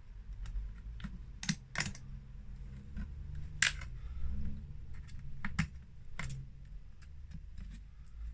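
Irregular sharp plastic clicks and taps from prying at a laptop's screen bezel and touch-screen panel, over a low steady hum.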